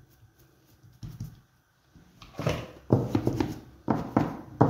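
Hands and a flexible plastic scraper pressing and shaping a log of semolina dough on a cloth-covered table: a few soft knocks and rubs, starting about two seconds in.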